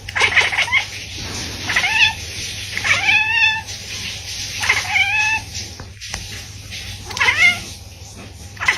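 A cat meowing repeatedly, about six separate meows a second or two apart, several rising then falling in pitch.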